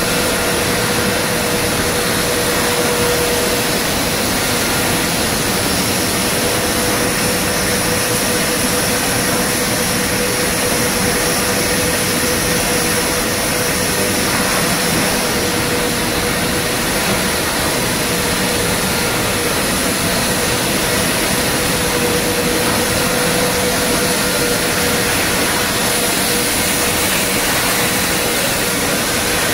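Steady running noise of fried-snack production machinery: electric motors, a rotating drum and conveyors, an even rushing noise with a constant mid-pitched hum.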